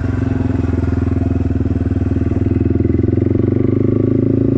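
Yamaha TW200's single-cylinder four-stroke engine running at low road speed, with an even, steady pulse of exhaust beats.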